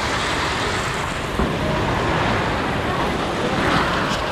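Steady rushing hiss of a fire hose nozzle spraying a high-pressure water jet.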